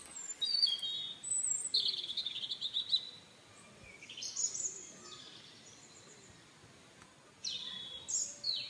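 Birds chirping and calling with short, high whistled notes and a trill in the first few seconds, another call about four seconds in, then a lull before more chirps near the end.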